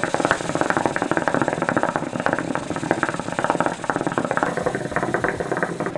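Hookah bubbling: a steady, rapid gurgling rattle of water in the base as smoke is drawn through it.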